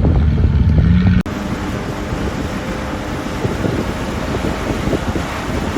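Caterpillar D5G XL crawler dozer's diesel engine running steadily while the dozer pushes soil. About a second in the sound breaks off sharply and returns rougher and noisier.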